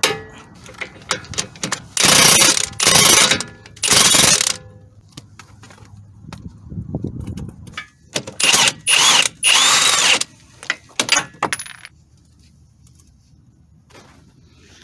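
Small metallic tool clinks, then four loud bursts of hissing noise from a tool, three short ones about half a second each and a last one of nearly two seconds.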